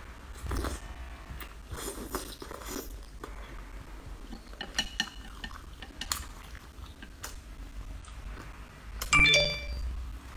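Close-up mouth sounds of chewing braised baby octopus, with a few small clicks. Near the end comes a loud clink of chopsticks against the ceramic plate that rings briefly.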